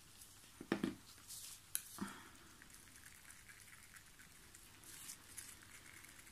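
Faint handling sounds of small plastic cups and a mixing stick: a few light clicks and knocks around the first two seconds, then soft scraping as pigment powder is stirred into epoxy resin.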